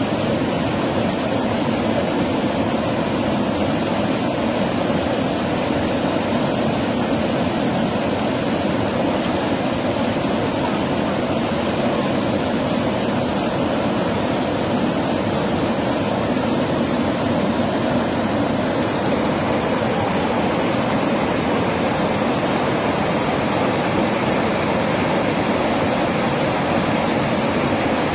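Fast mountain river rushing over boulders and rapids: a steady, loud rush of water.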